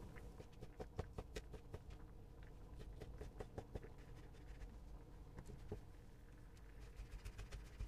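Kitchen knife tapping on a plastic cutting board as cooked chicken breast is diced into small pieces: quick, irregular light taps, thinning out in the middle and picking up again near the end.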